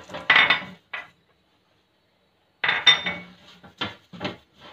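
A ridged metal baking tray clattering and scraping as it is handled and rubbed with oil by hand, in several short bursts with a pause of about a second and a half in the middle.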